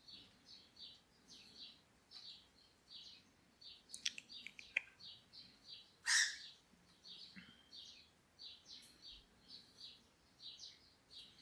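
Cockatiel chicks peeping: a steady run of short, high chirps, about three a second. A few sharp clicks come about four seconds in, and one louder, harsher call about six seconds in.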